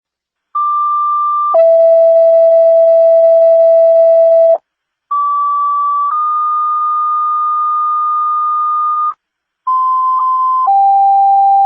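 Fire dispatch two-tone sequential paging tones over a scanner radio, alerting stations to a call. Three pairs of steady tones sound with short gaps between them, each a short tone of about a second followed by a longer one of about three seconds at a different pitch. The third pair's long tone is still sounding at the end.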